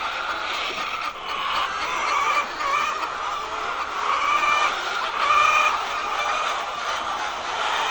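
A flock of hens clucking and calling over one another in a steady, unbroken chorus.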